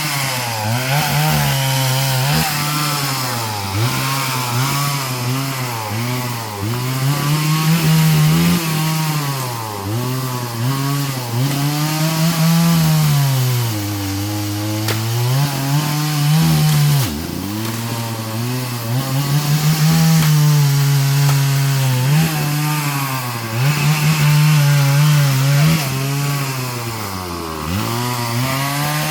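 Chainsaw running and cutting through tree limbs. The engine note rises and falls over and over as it revs up and bogs down under load.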